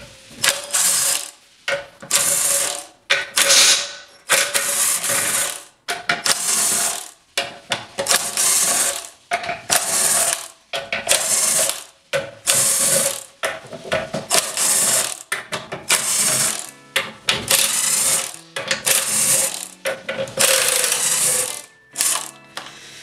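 Ryobi cordless power driver with a 10 mm socket spinning out the bolts that hold a 4L60E transmission's valve body, in about twenty short runs of a second or less with brief pauses between them; each run carries a steady motor whine.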